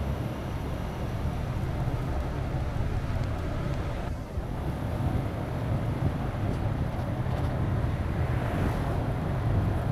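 Steady low rumble of wind buffeting a moving microphone, mixed with road noise, briefly easing about four seconds in.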